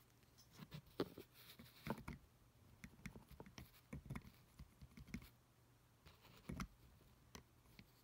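Faint, irregular clicks and taps of a small pocketknife blade working against a plastic three-dial luggage combination lock, in scattered clusters with short gaps.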